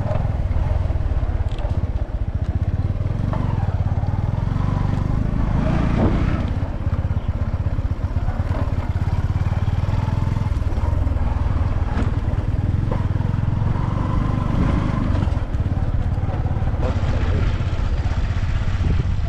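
Small 100 cc Bajaj Boxer motorcycle's single-cylinder four-stroke engine running steadily while riding on a sandy dirt track.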